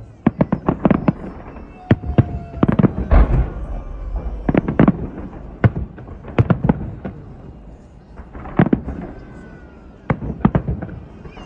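Fireworks salute going off: clusters of sharp bangs in quick succession, a new cluster every second or two.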